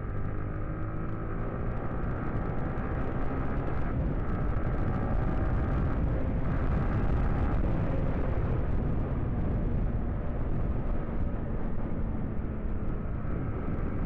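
Motorcycle engine running under way, its pitch rising twice in the first eight seconds and then holding steady, over a low rumble.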